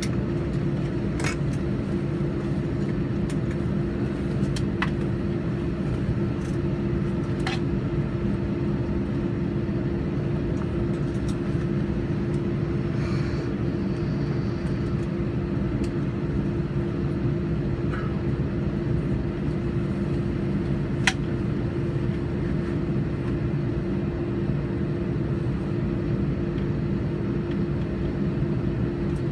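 Airbus A321 cabin noise on the ground: the engines' steady hum, a constant tone over a low rumble, with a few faint clicks.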